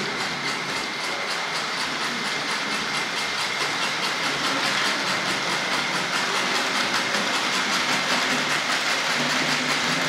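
Tri-ang Hornby OO-scale model steam locomotive Lord Westwood running on track, its 3D-printed chuff-chuff sound box giving a fast, even hissing chuff. Under it are the steady high whine of its motor and the rattle of wheels on rail.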